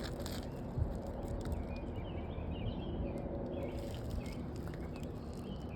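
Birds chirping in short repeated calls over a steady low outdoor noise, with a single soft knock about a second in.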